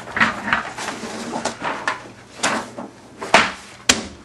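A run of short rustles and knocks in a small room, with two sharper clicks a little before the end.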